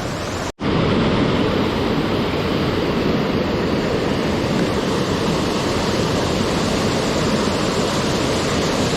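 Waterfall rushing steadily, a loud, even roar of falling water. The sound drops out for an instant about half a second in.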